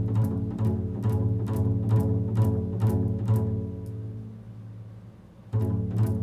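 Improvised instrumental music: a low, pitched drone with plucked or struck notes about two a second. It fades away about four seconds in, then comes back at full strength near the end.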